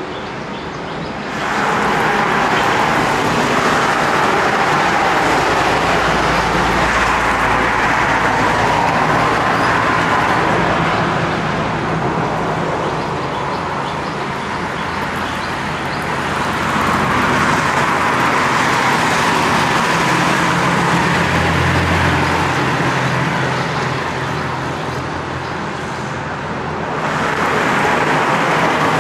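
Road traffic of cars and motorbikes passing, a continuous wash of engine and tyre noise. It swells about a second and a half in, eases off twice, and swells again near the end.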